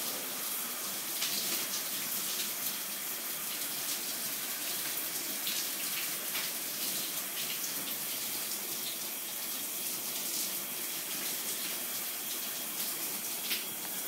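Shower water running steadily and splashing as a man leans into the spray to wet his hair, with faint scattered spatters.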